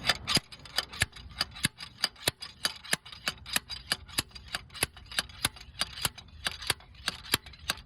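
Steady metallic clicking, about four clicks a second, as a threaded pilot-bearing puller is worked, most likely turned with a ratchet, drawing the pilot bearing slowly out of the engine's crankshaft.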